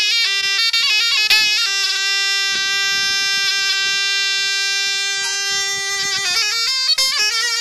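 Zurna playing a solo folk melody: quick ornamented notes, then one long held note from about two seconds in to about six seconds, breaking into fast runs again near the end.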